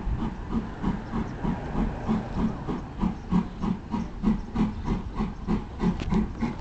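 Steam train running with a steady rhythmic beat of about four pulses a second, over a constant hiss of steam.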